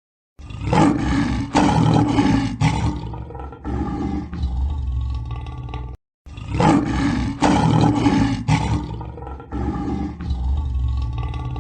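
Large carnivore roaring, deep and loud. The same roaring sequence plays twice, split by a brief silence about six seconds in.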